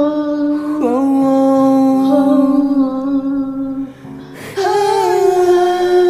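Pop ballad music with a singer holding long notes without words. The sound dips briefly about four seconds in, then a new held note begins.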